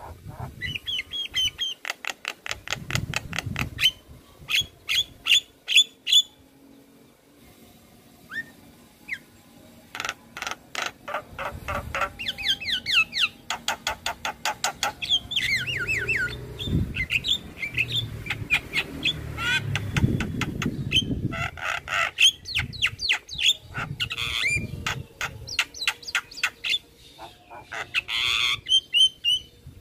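Javan myna singing: rapid runs of sharp repeated notes and gliding whistles, broken by a lull of a few seconds about six seconds in.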